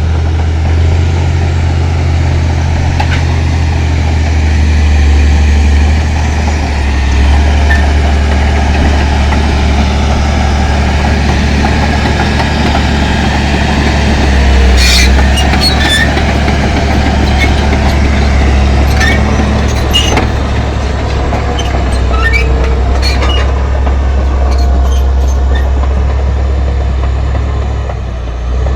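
Heavy diesel engine of road-building machinery running steadily and loudly, with scattered sharp knocks past the middle.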